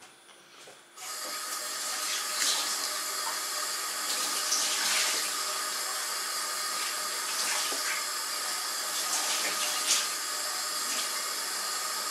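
Water running from a kitchen tap into a sink, turned on about a second in and then running steadily, with a thin steady tone in the rush and a few brief louder surges.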